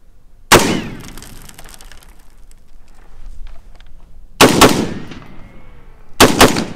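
Semi-automatic .308 rifle shots: one shot about half a second in, a quick pair near the middle, and another quick pair near the end, each trailing off in an echo.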